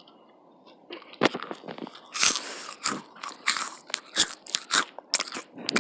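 Crunching bites and chewing of Sattobap puffed snack close to the microphone. Near quiet at first, then a quick run of crisp crunches begins about a second in.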